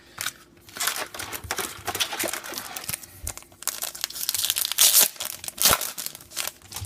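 Crinkly wrapper of a Topps Star Wars trading card pack being torn open and handled, a run of crackling rustles with a sharp click near the end.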